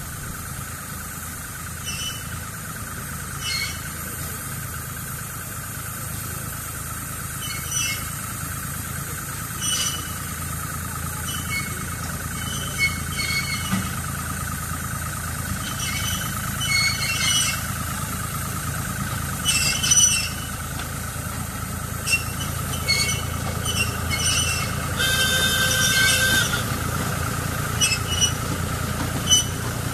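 Small narrow-gauge diesel locomotive running slowly and drawing nearer, its engine growing steadily louder. Short metallic squeaks and clicks come every second or two from the wheels on the curved track and points, with a longer, louder squeal about 25 seconds in.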